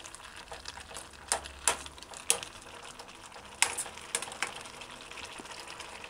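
Metal spoon stirring thick chili in a stainless steel pot, clinking and scraping against the sides and bottom about eight times in the first four and a half seconds. The chili is thickening as its water cooks off.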